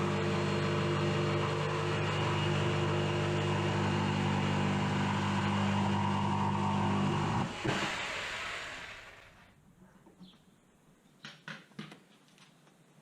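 Electric power tool motor running steadily at one pitch, then switched off about seven and a half seconds in and winding down over about two seconds. A few faint clicks and taps follow near the end.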